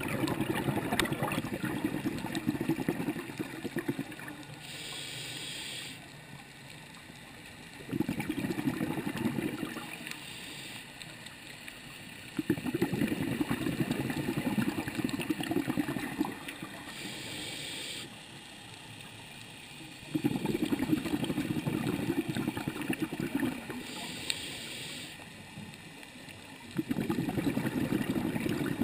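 A scuba diver's breathing through a regulator underwater: slow, irregular breaths, each exhale a loud rumbling burst of exhaust bubbles lasting a few seconds, with a brief high hiss of the regulator on the inhales between them. Five bubble bursts in all.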